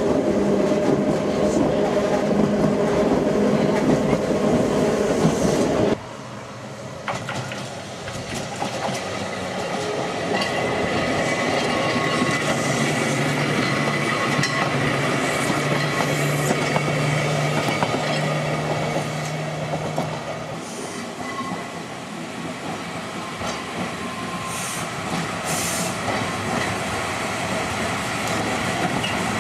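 Manx Electric Railway tramcars running on the track. First comes the steady running noise heard riding inside an open-sided car, which cuts off suddenly about six seconds in. Then a tramcar runs past with wheel and motor noise, including a steady low hum in the middle stretch.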